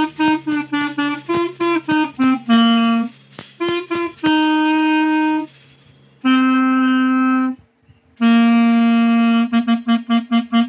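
Clarinet playing a solo melody: a run of short tongued notes, then three long held notes with brief breaths between them, then quick short notes again near the end.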